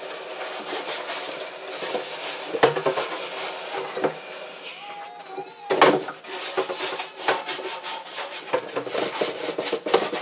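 A scrub brush scrubbing a dirty plastic chicken waterer in the kitchen sink. Water runs until about five seconds in, there is a knock, and then come fast, rubbing scrub strokes.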